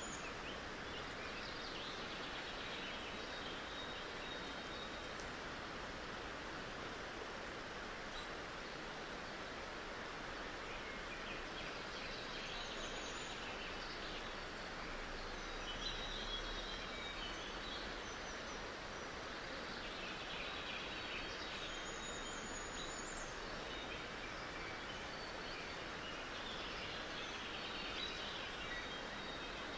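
Steady outdoor hiss, with faint, high bird chirps now and then.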